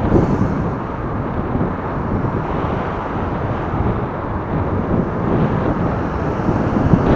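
Steady wind noise rumbling on the microphone of a moving recumbent bike, mixed with road and traffic noise.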